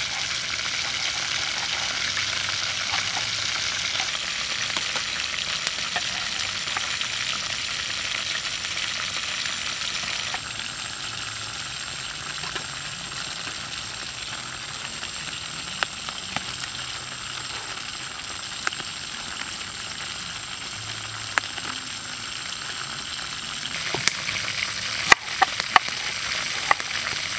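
Cleaver knocking on a wooden cutting board as it slices a Napa cabbage leaf, several sharp knocks near the end, over a steady hiss.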